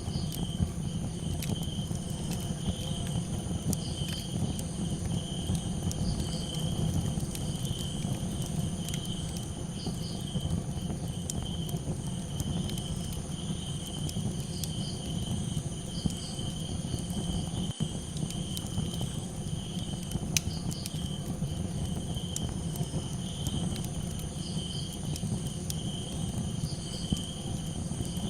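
Crickets chirping in a steady chorus over a crackling campfire. Sharp pops and snaps come at irregular moments over a constant low rumble.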